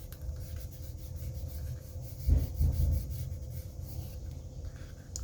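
Fingers rubbing and pressing a self-adhesive plastic laminating sheet down onto a photo: a low, dull rubbing, with a couple of louder bumps a little past two seconds in.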